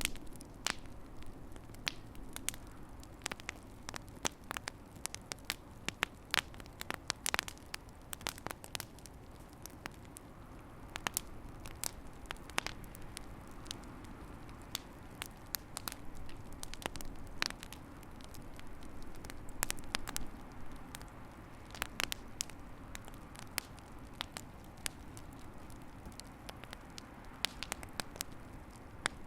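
Fire in a fireplace crackling: scattered sharp pops and snaps at irregular intervals over a low steady rumble of the flames.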